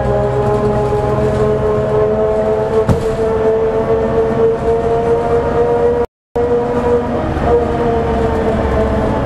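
Worn planetary hub-reduction gears on an MCW Metrobus's rear axle whining loudly under way, several steady tones that drift slightly in pitch over the rumble of the bus. The whine is the sign of worn planet gears in the hubs. The sound cuts out for a moment about six seconds in.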